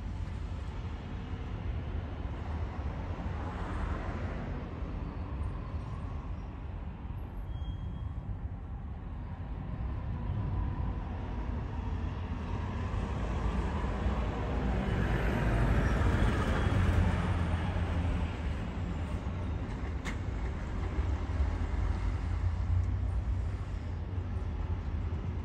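Wind rumbling on the microphone over steady outdoor background noise, with distant traffic swelling past around four seconds in and again, loudest, about fifteen to eighteen seconds in. A single faint click comes near the end.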